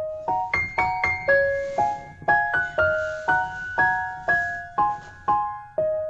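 Background music: a gentle piano melody of single struck notes, about two a second, each ringing out.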